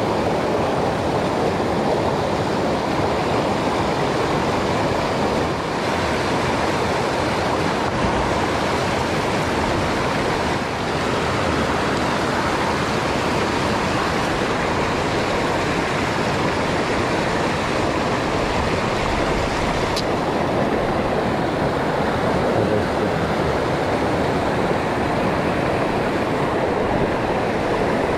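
Fast, shallow river rapids rushing steadily over stones, loud and close.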